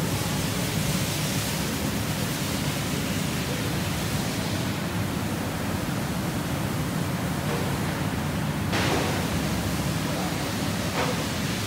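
Steady factory-floor noise from running E-TPU foaming molding machines: a constant low hum under a dense hiss, with a brief surge of hiss about nine seconds in and a shorter one near the end.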